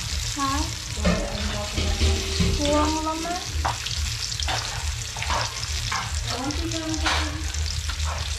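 A wooden spatula stirring and tossing a large batch of sauced spaghetti in a big metal wok on the burner: wet slapping of the noodles and a light sizzle, with the spatula knocking and scraping against the pan several times from about the middle on.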